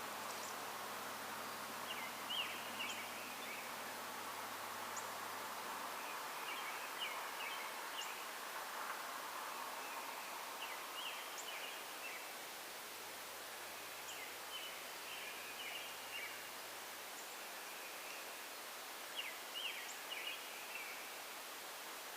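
A songbird singing the same short phrase of quick high notes every few seconds, over a steady rushing background.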